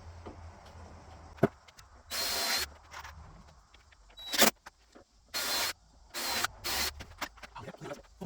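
Power drill running in four short bursts, each under a second, with a thin high whine, and a couple of sharp knocks between the bursts.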